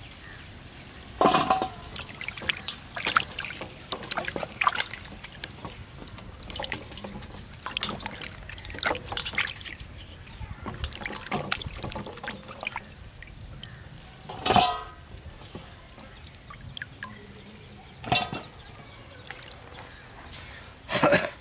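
Carrots and green beans being washed by hand in a steel bowl of water: irregular splashing and dripping, with a few louder knocks.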